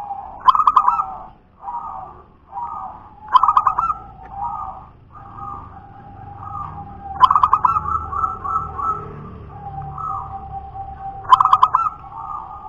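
Zebra dove (perkutut) singing its staccato cooing song: a loud trilled phrase comes four times, about every four seconds, with softer cooing in between.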